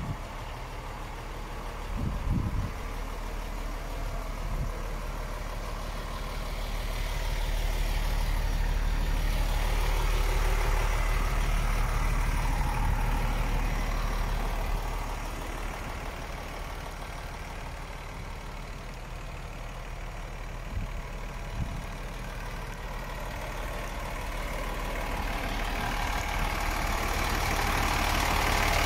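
MAN TGX 18.660 truck's 15.2-litre straight-six diesel engine idling steadily. It swells in loudness for a few seconds in the middle and again towards the end, with a brief thump about two seconds in.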